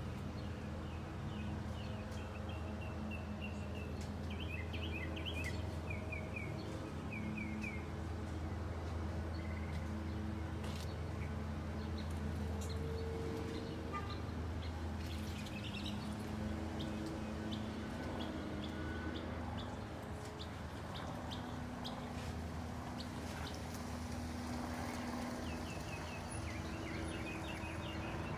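Small birds chirping in quick repeated series, over a steady low rumble.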